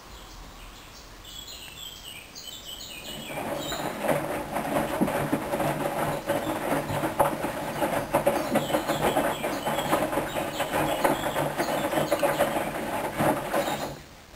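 Hoover washing machine in its rinse cycle: water rushing and splashing through the machine, building up a few seconds in and cutting off abruptly near the end.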